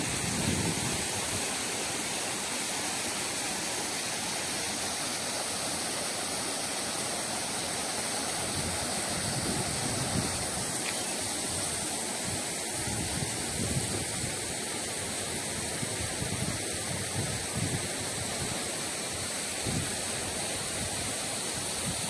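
Steady rush of a waterfall and falling water, with low gusts of wind on the microphone now and then.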